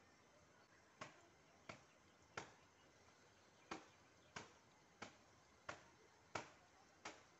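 Nine sharp, short clicks in a steady rhythm, about one every 0.7 seconds, with a longer pause after the third, over a near-silent background.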